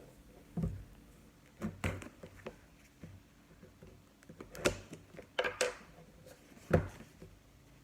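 A cardboard phone box being opened and handled: scattered taps, light knocks and scrapes of the lid and packaging, about half a dozen, the loudest a second or so before the end.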